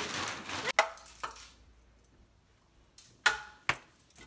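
Several short, sharp knocks or smacks with near quiet between them. The loudest come under a second in and again just after three seconds.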